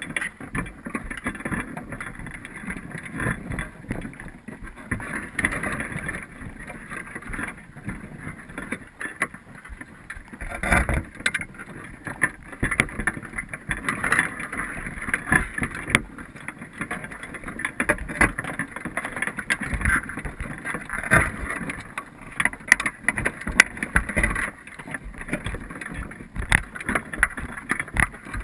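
Muffled underwater noise picked up by a camera submerged in a crab pot: a steady wash of water sound broken by irregular clicks and knocks.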